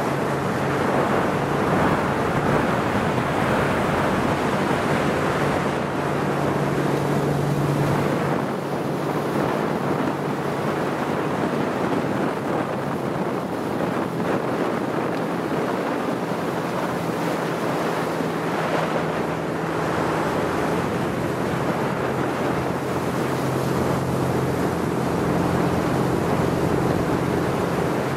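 Steady rush of water and wind on the microphone aboard a moving motorboat, with the boat's engine as a low hum underneath that fades in the middle and comes back near the end.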